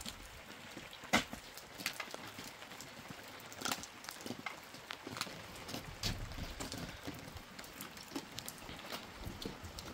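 Irregular footsteps and sharp taps on wet ground, over a faint patter of light rain.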